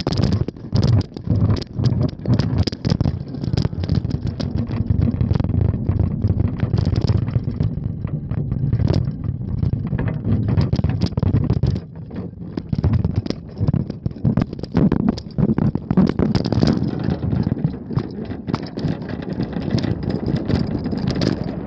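Bicycle riding along, heard from a phone lying in its wire-mesh handlebar basket: a low rumble of wind and road with frequent knocks and rattles as the basket jolts. The knocks are thickest in the first few seconds and again in the last third, with a short lull about twelve seconds in.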